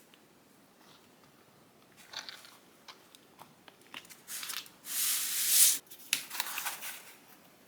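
Crafting handling noises: crunchy, crinkly scraping and small clicks, with one loud hissing rush lasting about a second partway through.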